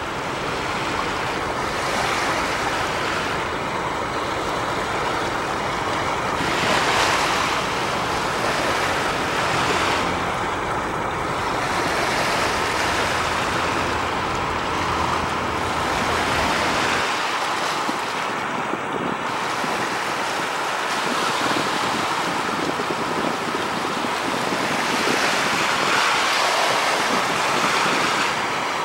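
Steady rush of water that swells and eases, with a low rumble of wind on the microphone that stops about halfway through.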